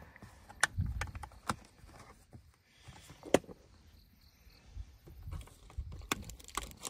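Scattered light clicks and knocks of camping gear and packages being handled, the sharpest about three and a half seconds in, over a low rumble.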